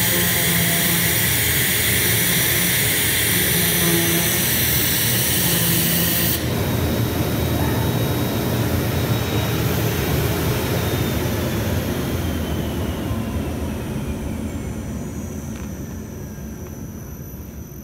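Vacuum hold-down blower of a digital flatbed cutting table running with a strong hiss. About six seconds in the hiss drops away suddenly, and the blower winds down with a falling whine and fades, its suction switched off. A few light knocks near the end as the cut carpet tile is handled.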